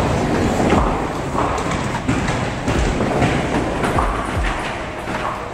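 Bowling alley: bowling balls rolling on the lanes with a steady low rumble, with scattered knocks.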